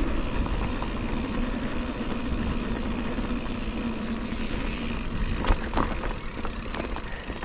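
Mountain bike rolling down a dirt trail: a steady rumble of tyres and moving air, a thin high steady whine, and a few sharp clicks and knocks in the second half.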